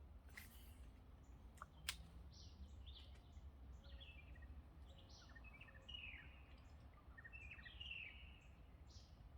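Faint birds chirping, many short descending chirps from several birds, over a low steady rumble of wind or handling noise, with one sharp click about two seconds in.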